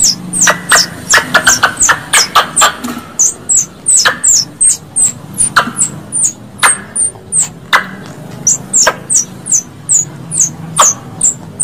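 Squirrel calls: a string of sharp, high chips, each a short whistle dropping in pitch, coming in a quick run for the first few seconds and then spaced out to one or two a second.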